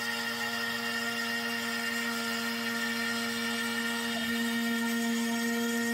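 Trim-router spindle of a NymoLabs NBX-5040 CNC router running at 12,000 RPM with a steady whine, its bit cutting a shallow 1/16-inch pass through MDF at 50 inches per minute. It gets a little louder about four seconds in.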